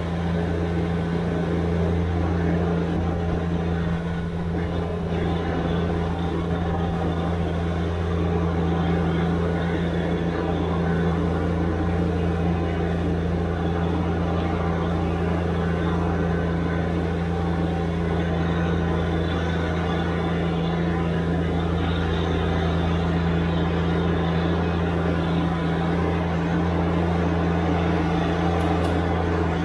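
Subcompact tractor's diesel engine running at a steady, unchanging speed.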